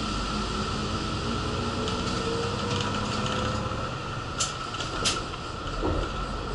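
Inside a city bus under way: steady engine and road noise, with a whine rising in pitch over the first few seconds and two short rattles about two-thirds of the way through.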